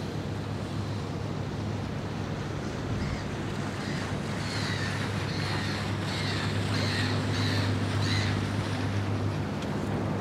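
Wind and water noise over a steady low boat engine hum, with a gull giving a run of short repeated cries from about three seconds in until near the end.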